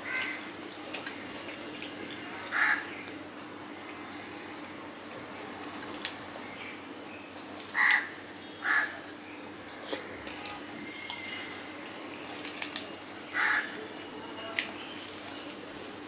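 Wet eating sounds of fingers picking through a fried fish on a steel plate and of mouth chewing, with a few sharp clicks. Short harsh calls cut in several times, sometimes in pairs, and are the loudest sounds.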